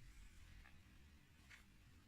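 Near silence: room tone, with two faint soft ticks.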